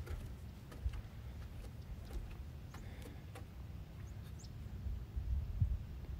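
Wind rumbling on the microphone, with a few faint clicks and a few faint bird chirps about four seconds in.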